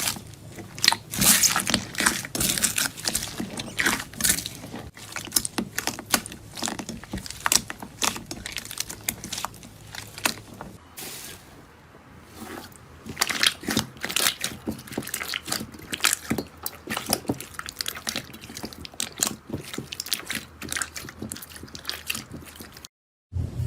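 Slime being squeezed and pressed, giving rapid, irregular wet crackling and popping clicks, with a short lull about eleven seconds in.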